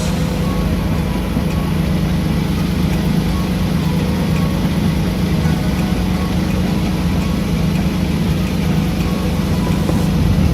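Nissan 300ZX (Z32) naturally aspirated VG30DE V6 running steadily, a constant low drone.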